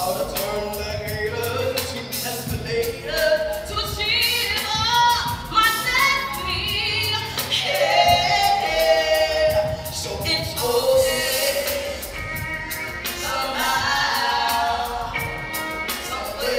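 A woman singing a soulful melody in long, gliding phrases, with her violin joining in at times.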